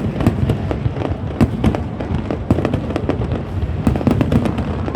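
Fireworks going off close by in a dense, continuous barrage: several sharp bangs and crackles each second with no let-up.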